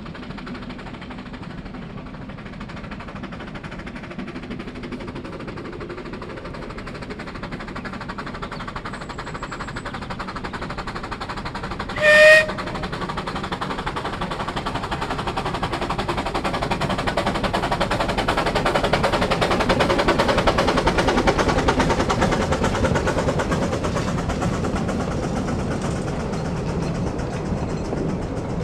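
Narrow-gauge steam locomotive working a passenger train past at speed, its fast exhaust beats growing louder as it approaches and passes, then easing as the coaches rumble by. One short whistle toot sounds about twelve seconds in.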